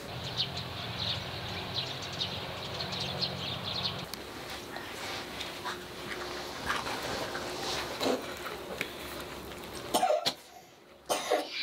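Kitchen knives cutting food over a plastic bowl: faint scrapes and small knocks, with a steady low hum for the first few seconds. Two short loud sounds near the end.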